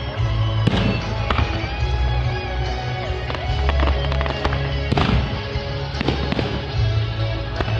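Fireworks display: shells bursting with several sharp bangs and crackle, over loud music with strong bass playing throughout.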